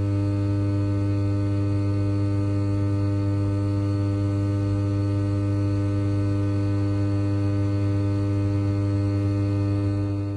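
Generator step-up transformer (15 kV to 230 kV) humming steadily under power: a deep, unchanging mains hum with a stack of higher overtones.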